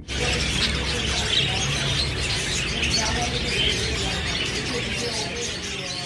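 A dense chorus of many small birds chirping, steady throughout, over a low steady hum.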